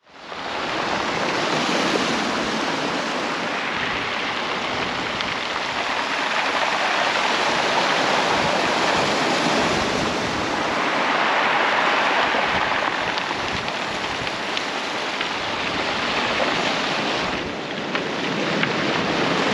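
Sea waves surging and washing up a stony bank, the wash swelling and easing every few seconds, with wind buffeting the microphone.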